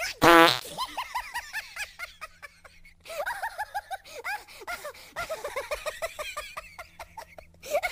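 Baby giggling in quick runs of short, high-pitched bursts, about five a second, opening with a short, loud squeal.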